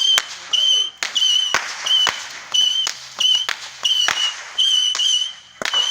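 Fireworks going off in sharp, irregular cracks and pops, mixed with a short high whistling tone that repeats about twice a second.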